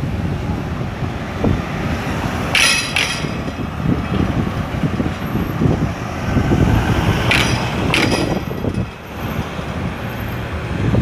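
Traffic passing through a city street junction, cars and a pickup driving close by, over a low uneven rumble of wind buffeting the microphone. A few sharp clatters come about three seconds in and twice more around seven to eight seconds.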